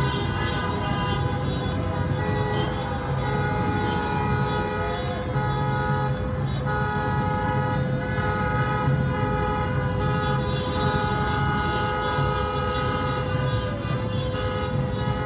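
Many car horns honking from a street jammed with stopped cars: long, overlapping held blasts at several pitches, with a few short breaks, over a low traffic rumble.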